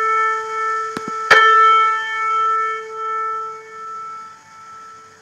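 Double string unison on A4: two piano strings sounding together from an ear-training app. The unison rings and is struck again just after a mouse click about a second in, then dies away with slow beats swelling a little more than once a second. The beating comes from one string being deliberately detuned to what is judged to be about 4.6 cents.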